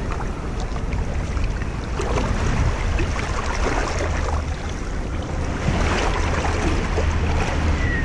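Shallow surf water sloshing and splashing around a person's hands and a large snook held in the water, over a steady low wind rumble on the microphone.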